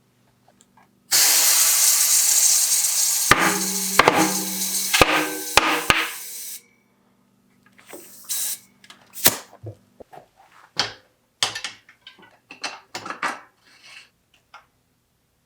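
Loud steady hiss of spraying air or aerosol for about five seconds, with several sharp snaps during it. Then scattered clicks and rattles of tools and bike parts being handled.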